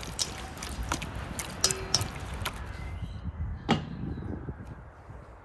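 Hands squishing and turning raw spiced lamb testicle pieces in a stainless steel bowl: a run of small wet clicks. One sharp knock follows about three-quarters of the way in, as the lidded bowl is handled.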